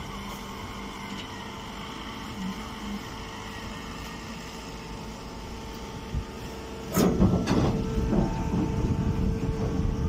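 Hydraulic hay baler's power unit running with a steady hum. About seven seconds in, a louder, irregular rattling clatter starts and lasts about three seconds as straw is loaded into the chamber.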